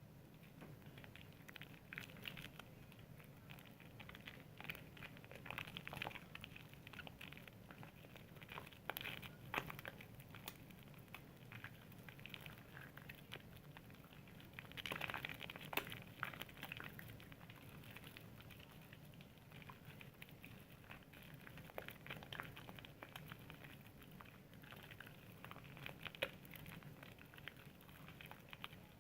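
Soap being worked into a lather: faint, irregular wet squishing and crackling of foam, busier and louder about halfway through.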